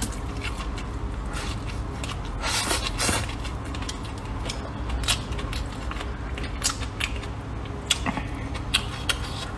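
Close-miked mouth sounds of eating rice noodles: chewing with wet clicks and lip smacks, and a short slurp about two and a half seconds in.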